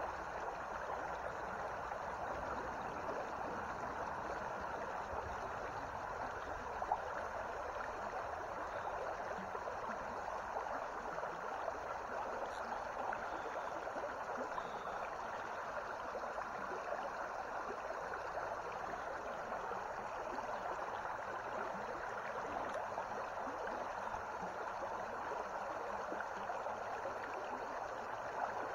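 Shallow creek water running steadily over a rippling riffle, with a single short click about seven seconds in.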